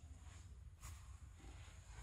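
Near silence: a low, steady room hum, with one faint soft rustle a little under a second in.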